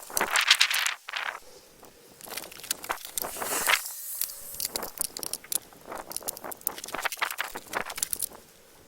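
Irregular clicking, crackling and scraping with no engine running, louder in clusters near the start, in the middle and over the last few seconds.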